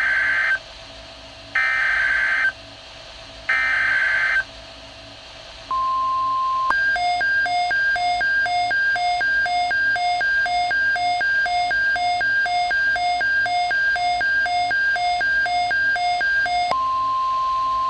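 Mock Emergency Alert System activation on a weather-radio broadcast. Three roughly one-second bursts of SAME header data tones come first, then a brief steady tone and about ten seconds of alternating high and low beeps at about two pairs a second. Near the end a long steady alert tone begins.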